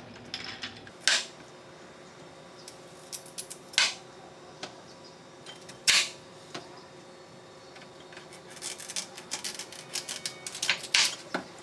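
Chef's knife cutting a raw sweet potato on a cutting board: a few separate sharp knocks of the blade meeting the board, then a quick run of clicks and knocks near the end.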